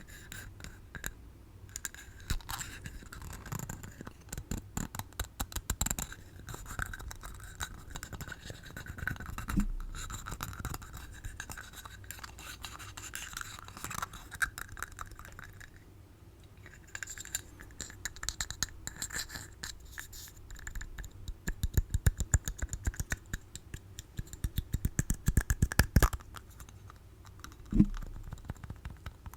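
Tapping and scratching on small objects, close to the microphone. The sound goes in irregular clicks and rubbing, with fast runs of taps in the last third and a couple of dull knocks.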